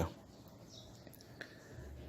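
Near silence: room tone in a pause of a narrated voice-over, with one faint click.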